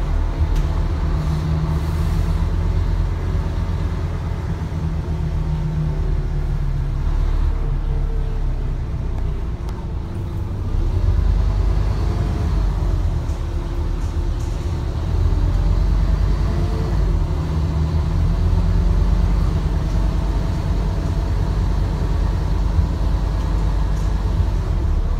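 Scania N230UD bus engine running steadily under way. Its note rises and falls as the bus pulls and changes gear, getting louder about eleven seconds in and again around fifteen seconds.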